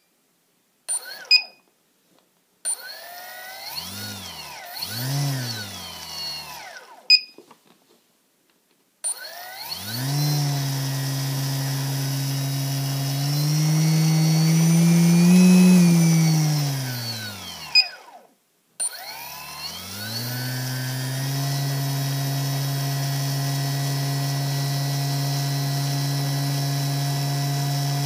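Brushless outrunner motor on a SimonK-flashed HobbyKing F40A ESC, running with no propeller fitted. A motor whine rises and falls in pitch through a couple of brief spin-ups, then a longer run that climbs and winds down to a stop. It starts again and holds a steady pitch. Short electronic beeps from the ESC come between the first runs.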